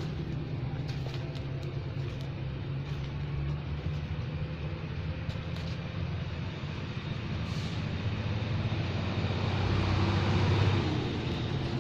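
A motor vehicle's engine running steadily at a low pitch, growing louder about nine to eleven seconds in.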